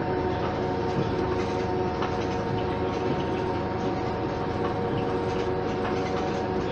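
Cabin sound of a Mercedes-Benz O 530 Citaro city bus on the move. Its OM 906 hLA six-cylinder diesel and drivetrain run with a steady hum of several tones over road rumble, with a few light rattles from the fittings.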